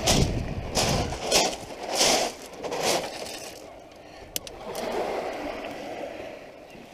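Footsteps crunching on shingle pebbles, about five steps in quick succession, followed by a single sharp click.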